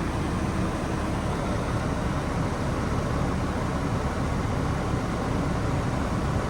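Mercedes Sprinter van's engine idling with the cabin heater fan blowing, heard from inside the van as a steady low rumble and hiss.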